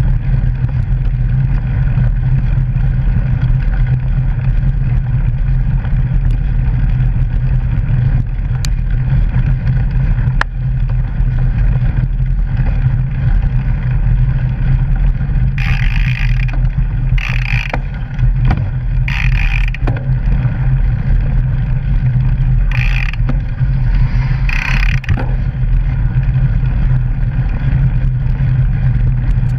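Steady loud low rumble of a mountain bike rolling over a gravel and dirt trail, heard through a camera mounted on the bike, with wind and vibration on the microphone. A couple of sharp knocks early on from bumps, and several brief higher-pitched bursts about halfway through.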